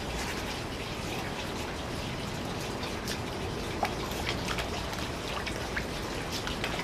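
Water trickling and splashing into a garden koi pond, a steady wash with many small drips and plops.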